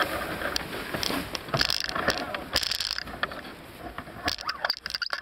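Sailboat deck hardware at work: irregular clicks, ratcheting and short rasping runs as winches turn and sheets run through blocks, busiest in the first three seconds and thinning near the end.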